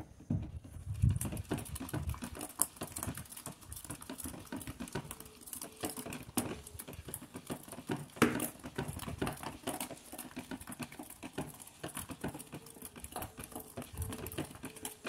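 A long white stick stirring thick, newly saponified soap paste thinned with water in a plastic tub. It makes irregular wet clicks and taps against the tub, with a couple of louder knocks.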